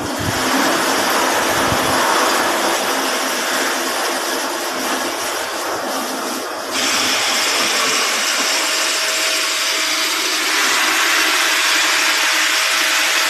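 A machine running steadily with a loud hissing noise. About seven seconds in it gets a little louder, and later a faint steady whine comes in.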